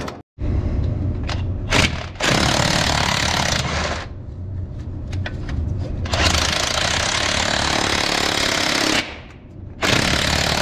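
Impact wrench hammering in three long runs with short pauses, driving a starter mounting bolt into a Cummins N14 diesel's bell housing. The bolt is binding, and the mechanic suspects it is cross-threading.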